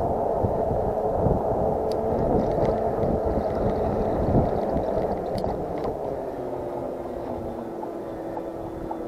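Riding noise on a moving e-bike: wind rushing over the microphone and tyre noise, with a faint steady hum. About two-thirds of the way through, the hum sinks a little in pitch and the noise eases off.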